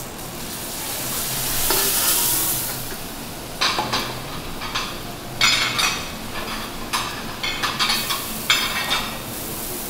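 Water poured onto a hot teppanyaki griddle hisses into steam around abalone in their shells, swelling and fading over the first few seconds. After that, under a steel dome lid, the abalone sizzle and spit in irregular crackling bursts.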